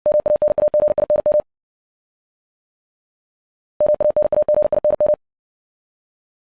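Morse code practice tone at 60 words per minute: one steady beep keyed rapidly on and off, spelling out a word. It comes in two runs of about a second and a half each, a couple of seconds apart, the word sent twice.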